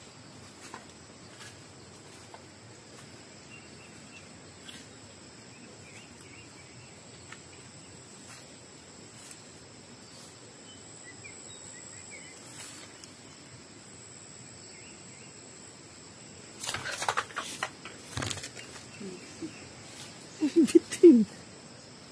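Insects trilling steadily in the background, a thin high unbroken tone over a faint outdoor hush. Starting about three-quarters of the way in, a run of loud rustles and knocks breaks in, the loudest near the end.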